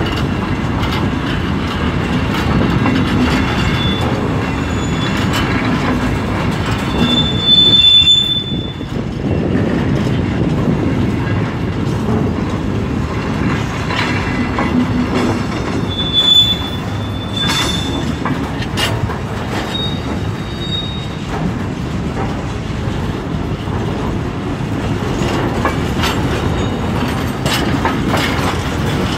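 Empty timber stake wagons rolling past close by: steel wheels rumbling and clattering over the rail joints, with short high wheel squeals, the loudest about eight and sixteen seconds in.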